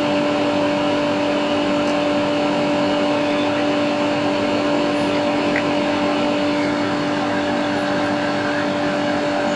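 Fume extractor fan running: a steady rush of air with a constant hum underneath.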